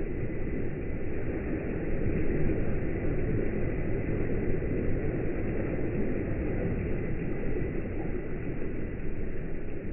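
Laboratory wave flume running: waves surging and breaking along the glass-walled tank, heard as a steady low rushing rumble with a faint steady high whine above it.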